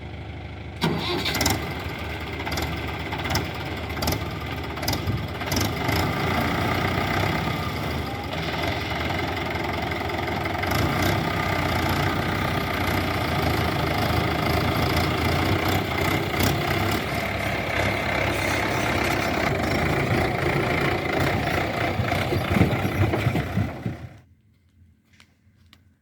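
Heavy diesel engine running loud and steady, with scattered knocks and clanks. It stops suddenly near the end.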